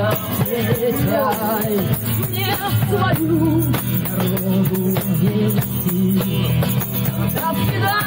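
Live acoustic guitar strummed, with a hand tambourine jingling along and voices singing.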